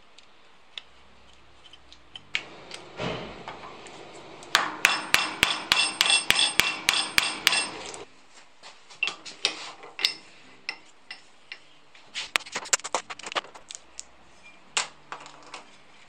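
A quick run of about a dozen ringing hammer taps on metal, roughly four a second, with scattered knocks and clicks of tools and steel on a workbench before and after.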